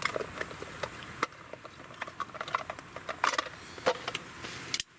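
Irregular clicks, rattles and knocks of a folding saw being handled out of its hard clear plastic case and opened, over the crackling of a wood campfire. The sound cuts off abruptly just before the end.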